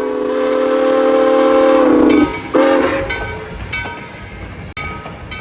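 Locomotive horn sounding a chord of several notes: one long blast, then a short blast.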